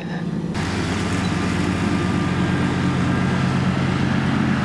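A small engine running steadily: a low, even hum that holds its pitch, with a hiss coming in about half a second in.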